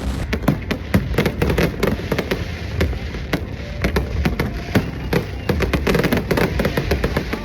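Fireworks going off: a dense, irregular run of sharp pops and crackles.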